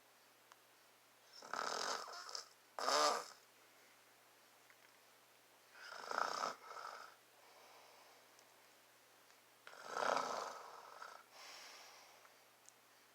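A man snoring in his sleep, heard close up: three loud snoring breaths about four seconds apart, the first ending in a short, rattling snore.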